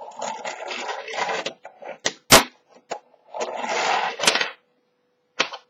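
Fingerboard rolling with a gritty rattle of its small wheels on a hard surface, broken by sharp clacks of the deck striking down in jumps and landings, the loudest about two seconds in. A second roll follows near the middle and ends in a clack.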